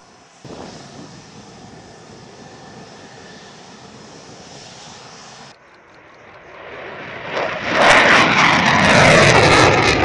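F-16 Fighting Falcon single-engine jet noise: a steady jet hiss for the first five seconds, then, after a cut, a low flyby whose roar swells over about two seconds and stays loud to the end.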